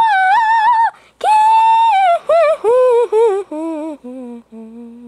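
A high-pitched voice singing: two long high notes, then a run of shorter notes stepping down in pitch. It gets quieter as it goes and ends on a long low note.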